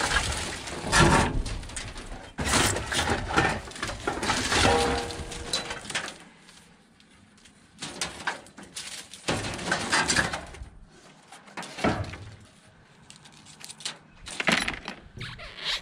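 Junk and scrap clattering and scraping as it is rummaged through in a dumpster: irregular knocks and rattles, dense for the first several seconds, then sparser bursts with short quiet gaps.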